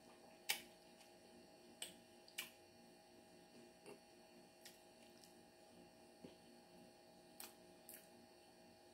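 Near silence: a faint steady room hum with a few short, sharp clicks, the sharpest about half a second in and a pair near the end.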